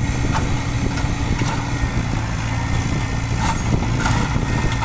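Diesel engine of heavy earth-moving machinery running steadily with a low hum, with a few faint clicks.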